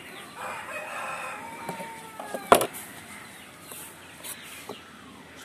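A rooster crowing in the background, one long held call, with a single sharp knock about two and a half seconds in.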